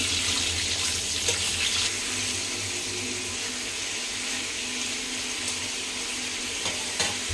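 Red tilapia pan-frying in hot oil, a steady sizzle that eases a little after about two seconds, with a few light clicks. The fish is being quickly pre-fried to firm its flesh before it goes into sour soup.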